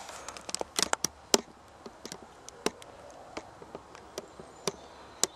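Irregular sharp clicks and light knocks, several a second and busiest in the first second and a half: dry twigs and bark tinder being handled while a fire is set up again.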